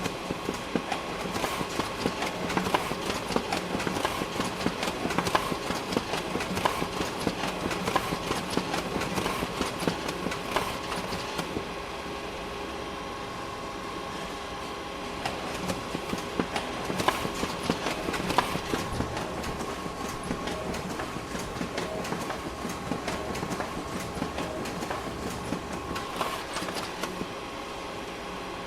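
Photocopier running, a steady mechanical hum under fast clattering and clicking of paper feeding through. It runs in two stretches with a few seconds of plain hum between them.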